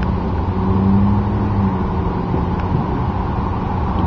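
Steady low rumble of a running motor vehicle engine, with a steady hum that swells a little about a second in.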